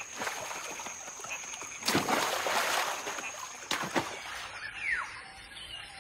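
Water splashing as macaques leap into a river: a big splash about two seconds in and a shorter one near four seconds. A short falling call follows near the end.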